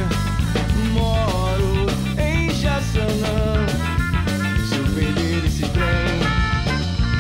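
Ska band playing a ska cover of a Brazilian samba: a melody line over bass and drums, at an even level.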